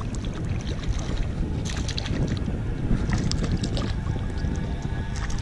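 Hooked pickerel splashing and thrashing at the water's surface beside a kayak: several short splashes over a steady rumble of wind on the microphone.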